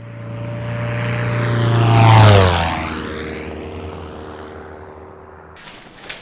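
Airplane fly-by: an engine drone grows louder, drops in pitch as it passes about two seconds in, then fades and cuts off suddenly near the end.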